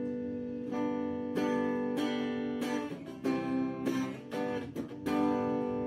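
Vault strat-style electric guitar strummed in chords through a small Palco practice amplifier, set for a clean, acoustic-like tone. The strumming is steady, a little under two strums a second, with each chord ringing on.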